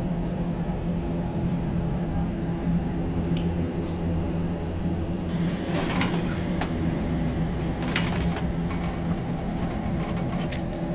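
A steady low hum of several fixed tones, with a few short sharp knocks or clicks about six and eight seconds in.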